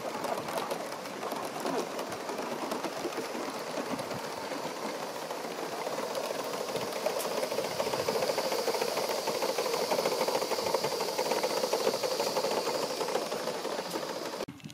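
Gauge One live steam model locomotive running, its exhaust beats giving a fast, even chuffing that grows louder in the second half and cuts off suddenly near the end.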